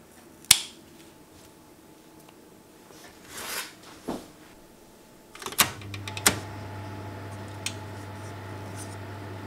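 Scissors snip a rosemary sprig once, sharply, followed by a brief rustle and a light knock. About halfway through, an oven's control knob clicks a few times, and the oven's fan starts up with a steady low hum as it is switched to fan roast.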